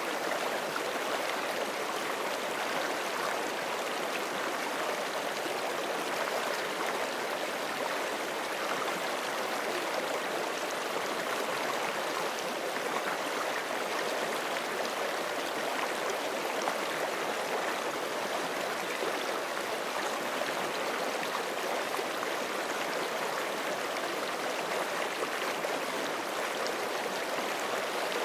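Forest creek water flowing and gurgling over rocks: a steady, unbroken rush.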